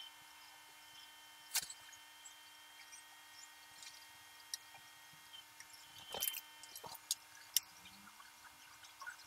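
Scattered sharp clicks of a computer mouse and keyboard being worked, about half a dozen, the loudest about a second and a half in, around six seconds and near seven and a half. Underneath runs a faint steady hiss with a thin electrical whine.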